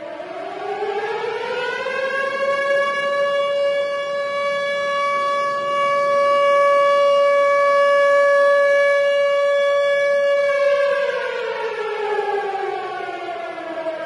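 Tornado warning siren winding up to a steady high wail over the first couple of seconds, holding that pitch, then winding back down to a lower pitch over the last few seconds.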